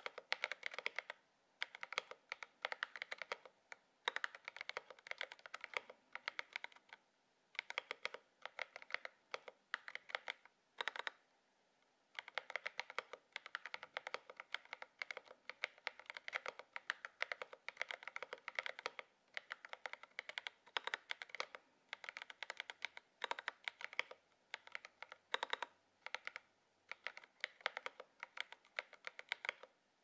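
Akko ACR Pro Alice Plus mechanical keyboard with an aluminium plate being typed on: quick runs of keystroke clicks with brief pauses between them, the longest about a second near the middle.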